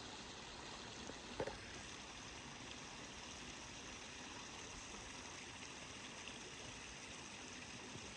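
Steady rush of a creek and small waterfall flowing, with a single light knock about a second and a half in.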